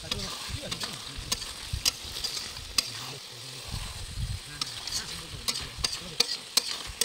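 A metal spatula scraping and turning chicken and potato pieces in a large metal kadai, with irregular clacks and scrapes against the pan over a steady sizzle of the frying masala.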